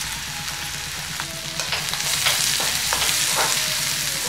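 Chopped onions sizzling in hot oil with mustard and cumin seeds in a kadhai, freshly added. From about a second in, a slotted spatula scrapes the pan as it stirs them.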